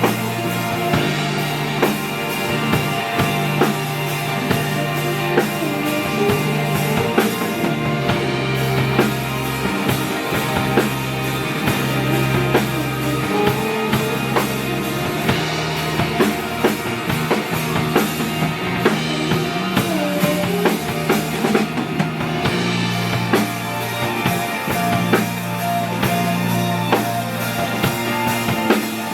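Live band music with a full drum kit (kick, snare and rimshots) driving a steady beat under sustained bass notes and a melodic line.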